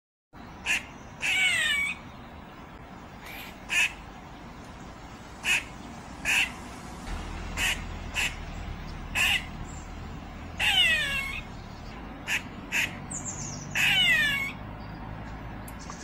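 Gray squirrel calling: a string of short, sharp barks spaced irregularly, with three longer, louder calls that slide down in pitch, one early, one a little past the middle and one near the end.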